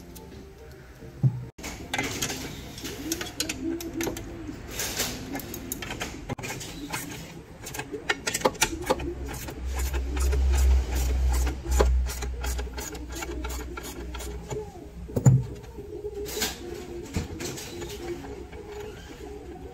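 Hands and a tool working on a water rowing machine's steel frame: scattered clicks, knocks and rustles of strap and metal. A sharp knock comes about a second in and another about three-quarters of the way through, with a low rumble for a couple of seconds in the middle.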